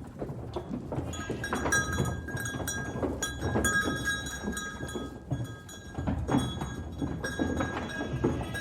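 A herd of goats on the move: bells on the animals ring and clink over a steady patter of hooves and shuffling bodies. The bells come in about a second in and keep going.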